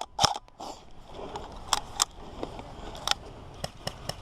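Irregular sharp snaps of airsoft guns firing single shots, about half a dozen, over a steady rustling hiss.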